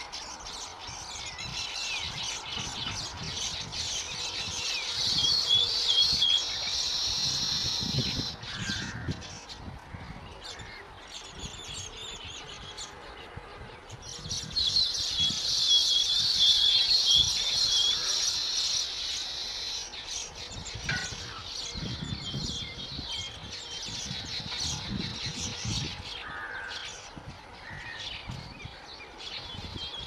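A colony of baya weavers chattering and wheezing at their nests, a busy high-pitched chorus that swells twice, about four seconds in and again midway, before settling to scattered calls.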